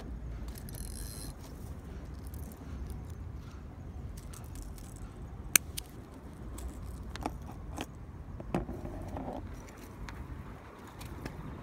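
Light metallic clicks and rattles from fishing tackle being handled with a small hand tool, the sharpest click about halfway through, over a steady low rumble of wind on the microphone.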